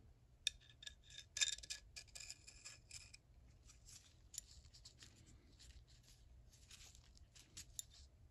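Faint clicks and light scrapes of a metal pick and gloved hands handling the emptied metal head of a ratchet during a teardown: a quick run of ticks in the first three seconds, then scattered ticks.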